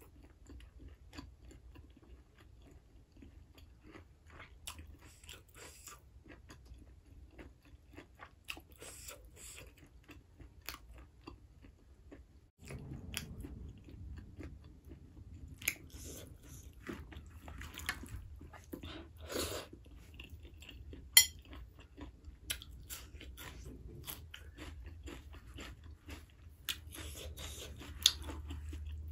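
Close-miked chewing and mouth sounds of a person eating rice with pork curry by hand, with many small wet clicks and smacks. A low steady hum comes in about halfway, and there is one sharp click about two-thirds of the way through.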